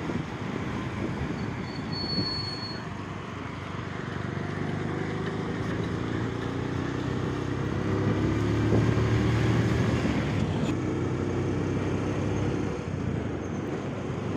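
Engine of a moving road vehicle running steadily as it drives along, its note rising and strengthening about midway, over a haze of wind and road noise. A brief high tone sounds about two seconds in.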